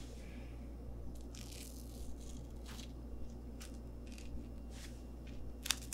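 Tape being peeled off a person's mouth in a few short tearing tugs, with a sharp click near the end, over a steady low hum.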